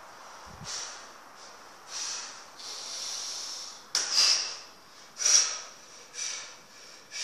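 A man's sharp, hissing breaths through nose and mouth, about one a second, the two loudest starting abruptly near the middle, as he braces to deadlift a heavily loaded trap bar.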